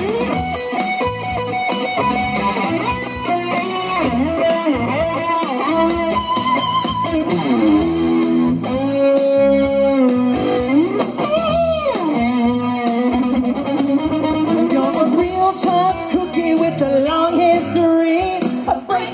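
Live rock band playing, with electric guitar to the fore over drums.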